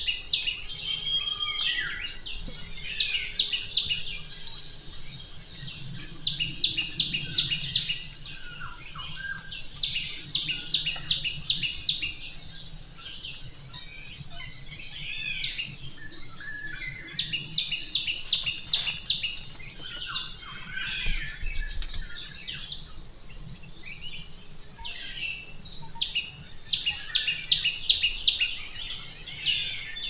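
Birds chirping and calling in short repeated phrases over a steady, high-pitched insect trill.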